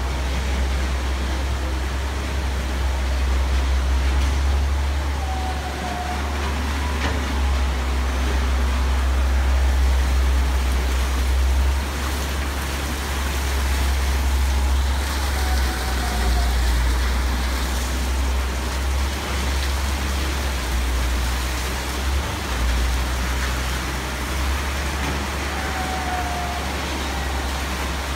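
Sand-separating plant machinery running: a steady low rumble under a broad hiss, with three faint short squeaks about ten seconds apart.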